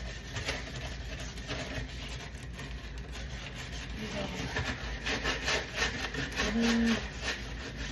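Scrubbing the stuck-on residue in the bottom bin of a refrigerator, a rubbing, scraping sound of quick back-and-forth strokes that grow louder and more regular in the second half.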